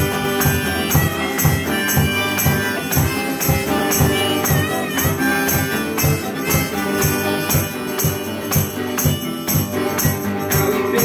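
Instrumental break in a folk song: a steel-string acoustic guitar strummed in a steady rhythm, with a held melody line that bends in pitch sounding over it.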